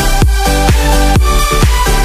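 Background electronic dance music with a steady four-on-the-floor kick drum about twice a second under sustained synth chords, with no vocals.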